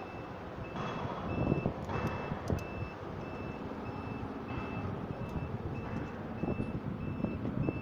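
An electronic warning beeper sounding a steady high beep, just under two a second, over continuous workshop machinery noise with scattered clunks and knocks.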